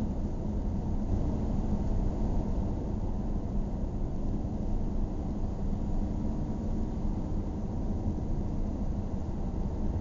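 A car being driven: steady low road noise from the tyres, with a faint engine hum underneath.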